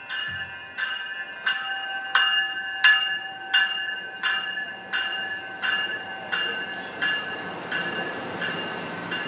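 A railway bell ringing in even strokes, about three every two seconds, slowly fading. From about six seconds in, the rolling noise of a train rises beneath it.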